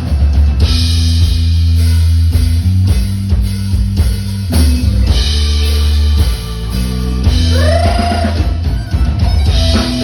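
Live band playing an instrumental passage of a Thai luk thung–mor lam song: drum kit keeping a steady beat over bass and guitar, with a short sliding note about eight seconds in.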